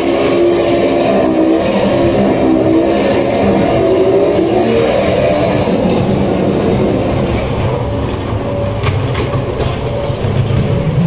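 Modern Products ghost-train car rolling along its track, a low rumble that grows toward the end with a few clicks. Over it, the ride's soundtrack of held tones fades out about halfway through.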